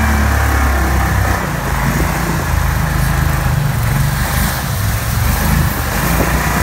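Pro-Drive 36 hp surface-drive mud motor running hard under load, pushing a jon boat through a reedy marsh trail. About a second in, its steady note turns uneven and wavers.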